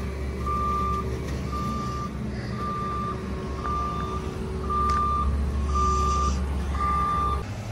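Forklift backup alarm beeping about once a second, one steady tone, over the forklift's running engine. The engine grows louder about five seconds in, and both the beeping and the engine stop just before the end.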